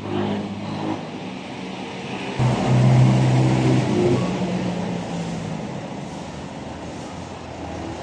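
Mitsubishi Montero Sport's 2.4-litre four-cylinder diesel engine running as the SUV pulls away. It gets louder about two and a half seconds in, then eases off.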